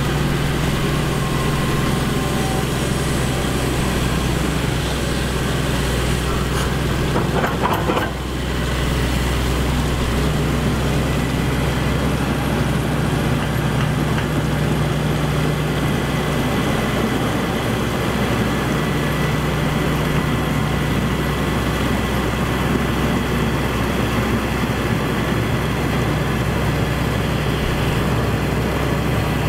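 Excavator's diesel engine running steadily with a low, even hum, briefly dipping about eight seconds in.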